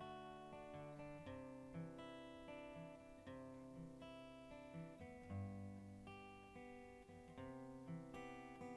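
Quiet background music: a strummed acoustic guitar playing chords.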